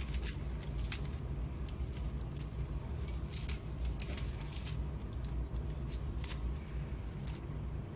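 Fresh spinach leaves being torn apart by hand and dropped onto the pizza: scattered small, crisp snapping and rustling sounds over a steady low hum.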